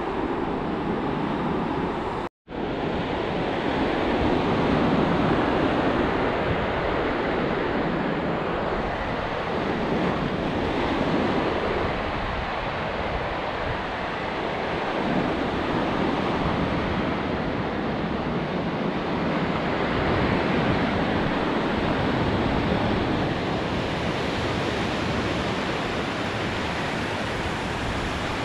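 Ocean surf washing onto a sandy beach, a steady roar of breaking waves that swells and eases over several seconds, with wind buffeting the microphone. About two seconds in, the sound cuts out completely for an instant.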